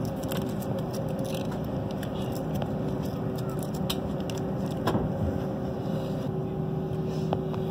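Airliner cabin drone heard from a window seat: the steady hum and rush of the engines and air system, with a held mid-pitched tone, as the plane nears takeoff. A few light clicks come through now and then.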